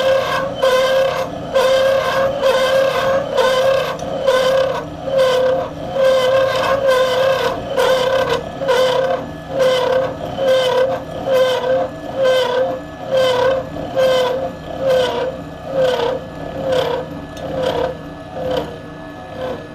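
Bridgeport milling machine taking a cut in 4140 steel with a 3/16-inch disc cutter, workpiece held in a dividing head: a ringing metal-cutting tone that swells and dips a little more than once a second, growing weaker over the last few seconds as the cut nears its end.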